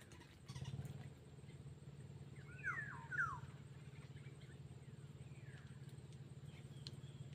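A bird gives a few quick, downward-sweeping calls about two and a half seconds in, over a steady low hum.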